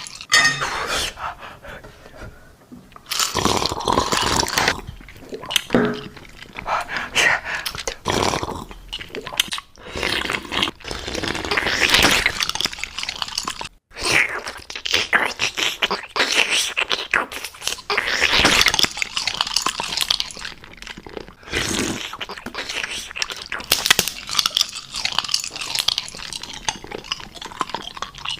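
Crunchy food being bitten and chewed close to the microphone, in uneven runs of crunches, with a brief sudden break about fourteen seconds in.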